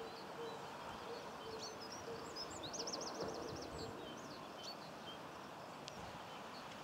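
Rural outdoor ambience: small birds singing with scattered high chirps and a quick trill about three seconds in, over a soft, steady background hiss. A low hooting note repeats every half second or so through the first half.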